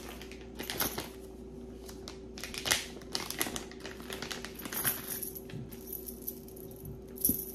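Metal jewelry pieces clinking and jingling against each other as they are handled and picked out of a bag, in irregular small clicks.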